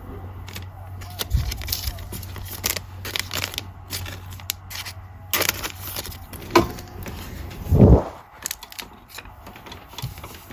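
Trading cards being handled and flipped through, with irregular soft clicks and rustles of card stock, and one louder low thud about eight seconds in.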